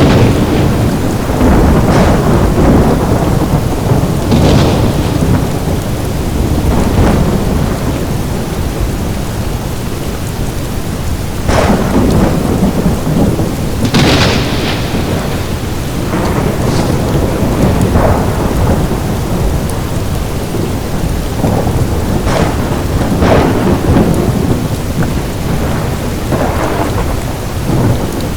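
Thunderstorm with steady heavy rain and a continuous low rumble of thunder. Sharp cracks break through every few seconds, the strongest about halfway through.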